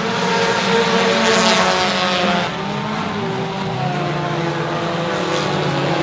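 U-car class race cars running at speed on a dirt oval, engines at high revs. The sound swells as cars pass close, loudest about a second and a half in and again near the end.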